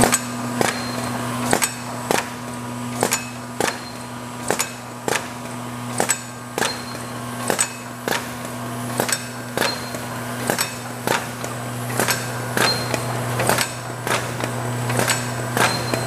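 Egg carton labeling machine running: a steady low hum with sharp mechanical clacks every half second to a second, often in pairs, as the cartons move through.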